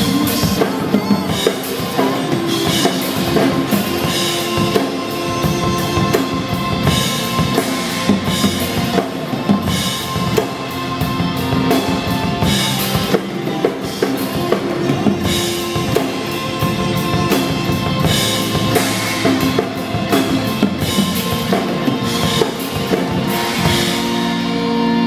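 Acoustic drum kit played live, with kick drum, snare and cymbal hits, over a pop song's backing track. Near the end the cymbals and drums stop while the backing music carries on.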